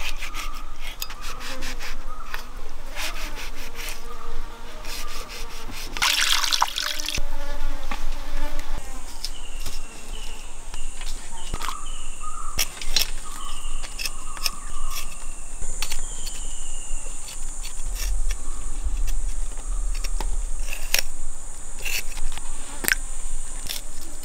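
Insects buzzing, with a steady high drone that sets in about nine seconds in, over scattered clicks and taps of knife work and food being handled.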